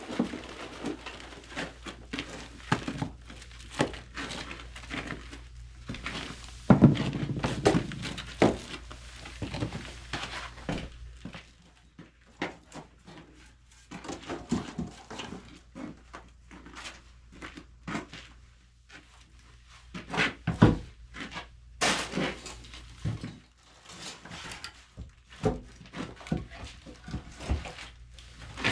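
Firewood being loaded into an agungi, a traditional Korean wood-fired firebox: irregular wooden knocks and clatter as logs are handled and dropped in, loudest about seven seconds in and again about twenty-one seconds in, with scattered small ticks and crackles between.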